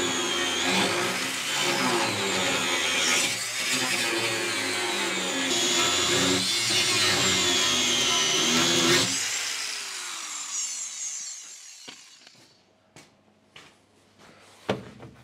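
Angle grinder grinding the worn steel edge of a loader grab bucket, its high whine dipping and rising with the load. About nine seconds in it is switched off and winds down in falling pitch, followed by a few light clicks.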